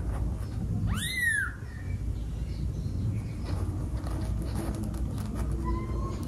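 Newborn kitten mewing once about a second in, a short high cry that rises and falls in pitch, over a steady low background hum.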